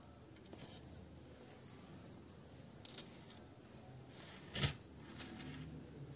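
Faint rubbing and light ticks of a metal crochet hook and yarn being worked into a magic ring, with one sharper click a little past halfway.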